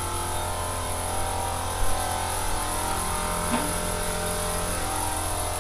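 Air compressor motor running with a steady hum, with a brief knock about two seconds in.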